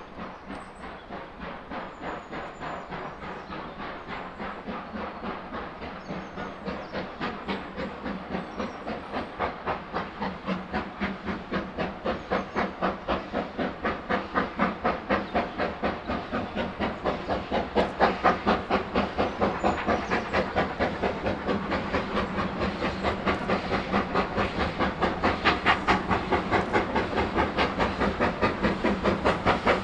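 Exhaust beats of the two-cylinder steam locomotive No. 2999 'Lady of Legend', a new-build GWR 'Saint' class 4-6-0, working a train. The chuffing is rapid and even, and it grows steadily louder as the engine approaches.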